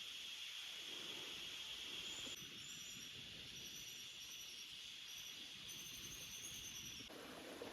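Rainforest ambience: a steady high hiss, typical of insects. It changes abruptly about two seconds in, and from then on short, repeated high chirps sound over it. The sound shifts again near the end.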